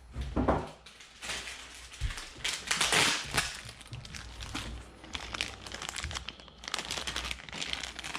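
Packaging crinkling and rustling in irregular bursts as parts are handled and unwrapped, loudest about three seconds in.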